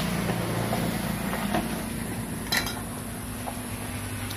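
Steady low mechanical hum, like a motor running nearby, with a couple of faint clicks.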